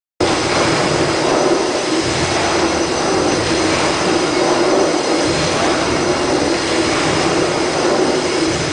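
No. 2 steam beam engine at Abbey Pumping Station running in steam: a loud, steady wash of machinery and steam noise. It starts suddenly just after the title card.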